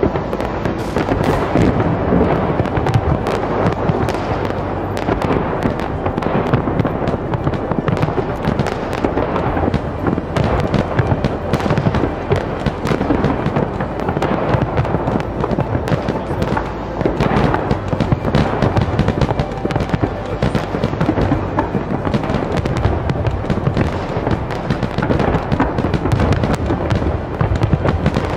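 Large aerial fireworks display: shells bursting in rapid, overlapping succession with crackling, continuous and without a pause.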